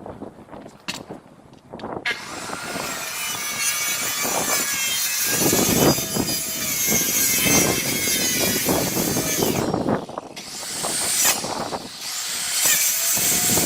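Power saw cutting into the wooden roof deck to remove soft, water-damaged spots. It starts about two seconds in, stops briefly after about ten seconds, then starts cutting again.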